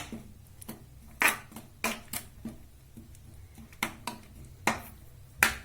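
Metal kitchen utensils clinking against a kadhai: about six sharp, irregularly spaced knocks with lighter ticks between them.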